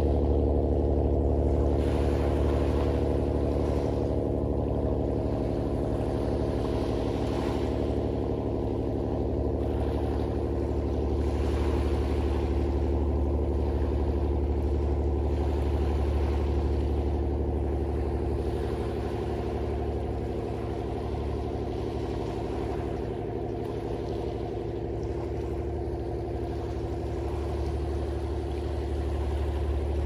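A boat engine drones steadily, with small waves washing onto a pebbly beach every few seconds.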